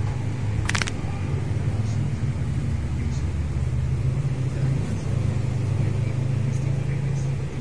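A vehicle's engine running with a steady low rumble, and one sharp click about a second in.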